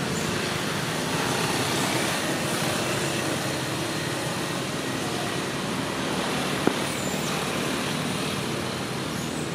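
Steady outdoor background noise, an even hiss with no distinct voices or calls, with a single sharp click about seven seconds in.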